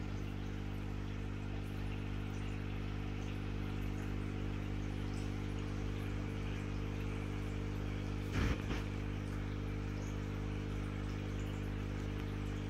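A steady low mechanical hum made of several fixed tones, with a short bump about eight and a half seconds in.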